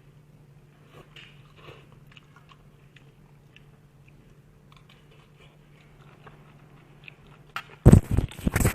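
Close-miked eating. Soft scattered mouth clicks and chewing, then a loud burst of biting and crunching about eight seconds in.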